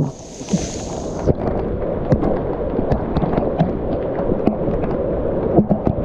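Heavy rain falling on dense forest foliage: a steady rushing hiss studded with many sharp drop hits, with a brief high hiss in the first second.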